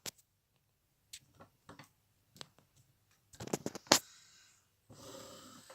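Scattered small clicks and taps of a plastic action figure being handled, with a quick run of clicks about three and a half seconds in and the loudest click just after; a soft rustle follows near the end.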